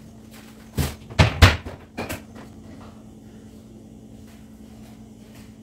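Kitchen cabinet door being handled and shut, with four sharp knocks in the first two seconds or so, then only a faint steady hum.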